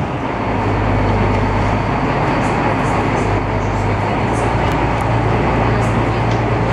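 Glass-bottom tour boat's engine running steadily, heard from inside the hull: a constant low hum under an even rushing noise.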